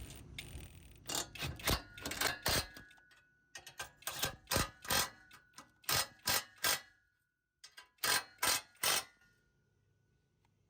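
Sharp clicks and ticks from hand tools working on the bolts of a bolt-on steel rear bumper and spare tire carrier, coming in irregular groups of two to three a second. There is a short pause, then a last group of three clicks.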